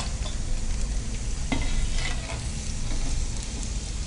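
Hot oil sizzling steadily in a kadai as curry leaves and green chillies fry in it, with a couple of brief metal clicks from the skimmer around the middle.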